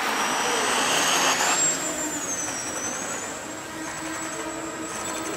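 Electric pusher motor and propeller of an RC model plane spooling up for takeoff: a rising whine that climbs for about a second and a half, then wavers down and back up with the throttle as the plane flies. A rush of noise accompanies the run-up.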